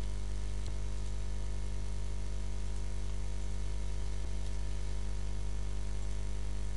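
Steady electrical mains hum and hiss on the recording, with faint clicks about a second in and again past the middle.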